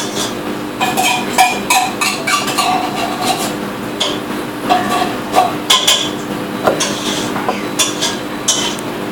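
Irregular small clicks and clinks of tiny metal gear shafts and parts being handled and fitted back into an opened Hitec HS-805BB servo's plastic case, over a steady low hum.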